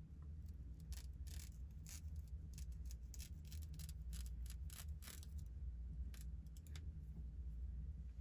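Scissors snipping through wig lace in a quick, irregular run of short cuts, two to three a second, from about a second in until near the end, over a steady low hum.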